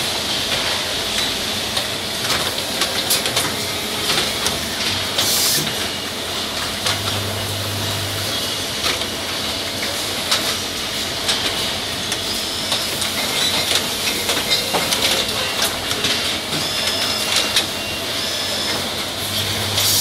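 Automated brake caliper assembly machine (cartridge and piston insertion unit) running: pneumatic actuators clicking and hissing over a steady machine din, with a short burst of air about five seconds in and a low hum that comes and goes twice.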